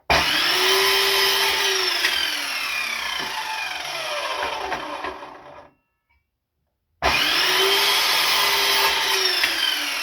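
Power saw cutting wood twice: a loud whine whose pitch slowly falls, fading out a little over five seconds in, then starting again abruptly about a second later.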